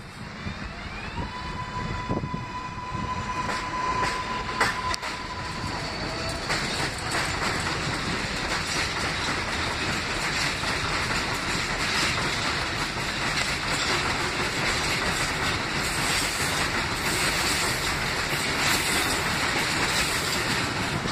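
Kawasaki R188 subway train pulling out. Its traction motors whine, rising in pitch during the first few seconds, along with a steady high tone. Then the rumble and clickety-clack of the wheels over the rail joints builds and holds as the cars run past close by.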